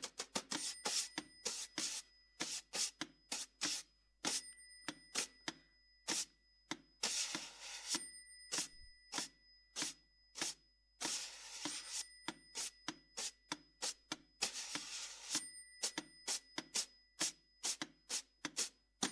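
Snare drum muffled by a cloth draped over its head, played in quick, irregular dry taps. These break three times, about seven, eleven and fifteen seconds in, into longer stretches of continuous rough sound.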